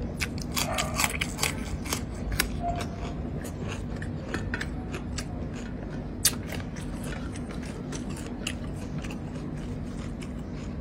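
Close-up chewing and crunching of someone eating, biting into a raw green vegetable, with many sharp crunches in the first two seconds and a single louder crunch about six seconds in.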